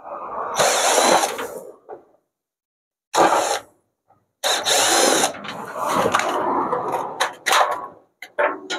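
Cordless power drill/driver running in several bursts, unscrewing the screws that hold the washing machine's drum. There is a longer run at the start, a short one around three seconds in, and a longer uneven run in the second half.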